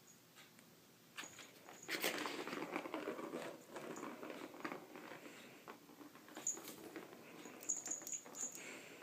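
Rustling with scattered light taps and clicks, starting about two seconds in and tapering off.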